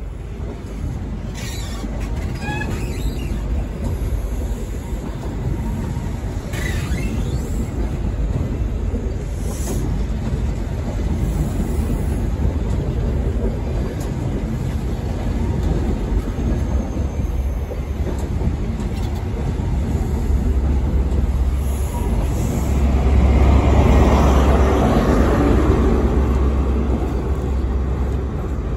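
A CrossCountry InterCity 125 High Speed Train's coaches rolling slowly past as it pulls away, with a steady rumble and a few brief high wheel squeals near the start. Near the end the sound swells louder as the trailing Class 43 power car's diesel engine goes by.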